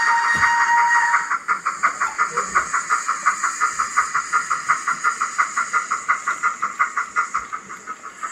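The DCC sound decoder in a model BR Standard Class 9F steam locomotive plays steam exhaust chuffs at a quick, even beat through its small speaker. A steady whistle sounds over the chuffs and cuts off about a second in. The chuffs grow quieter toward the end.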